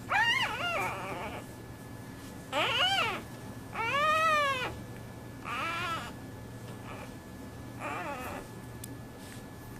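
Newborn clouded leopard cub calling in high-pitched mews, about five short separate calls with pauses between, the longest and loudest rising and falling in pitch about four seconds in.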